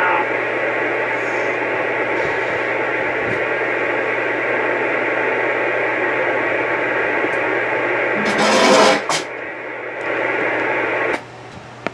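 CB radio receiver hissing with open-channel static and a steady low hum. A louder burst of static comes about eight and a half seconds in, and the hiss drops away abruptly shortly before the end.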